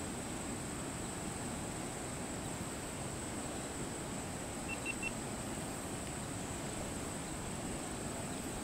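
Steady outdoor background hiss with a constant thin high-pitched whine, and three quick high chirps close together about halfway through.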